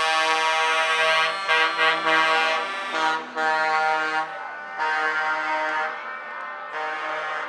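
Truck air horns blaring a run of long held notes, switching between several pitches with short breaks between blasts.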